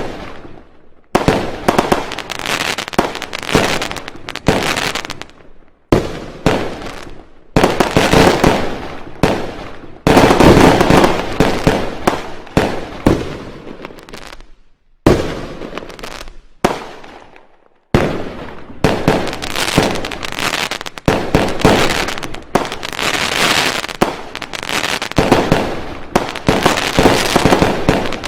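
Fireworks going off in rapid volleys of bangs and crackles. Each volley starts abruptly and dies away, with short breaks between them.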